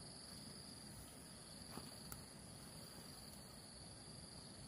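Crickets trilling faintly in a steady, high-pitched drone, with one faint click about two seconds in.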